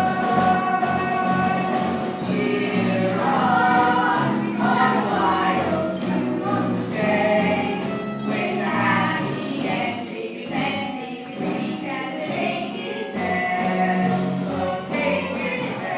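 A group of voices singing a stage-musical number over instrumental accompaniment.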